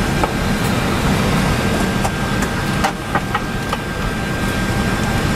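Steady cockpit noise of an Airbus A320-214 on the ground before engine start: the air conditioning and equipment ventilation running, with a thin steady high whine and a few faint clicks two to four seconds in.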